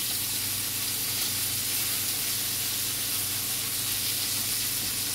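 Chicken pieces sizzling steadily as they fry in a little oil in a frying pan.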